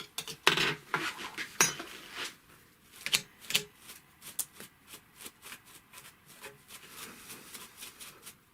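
Small metal clicks, taps and light scraping at an industrial sewing machine's opened needle-plate area as debris is cleared from it, irregular and hand-paced.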